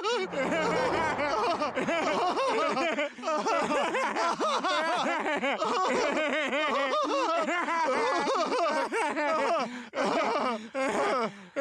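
Two cartoon voices, a man's and a baby's, laughing together in long, unbroken fits, with short breaks about three, ten and eleven seconds in.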